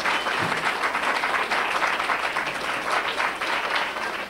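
Audience applauding, tapering off near the end.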